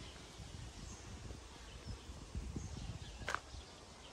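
Woodland ambience: scattered short songbird chirps over an uneven low rumble, with one sharp click a little after three seconds in.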